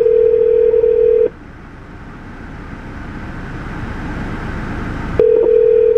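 Telephone ringback tone on a call that goes unanswered: a steady ring that stops about a second in, then a pause of about four seconds, then the next ring starting near the end.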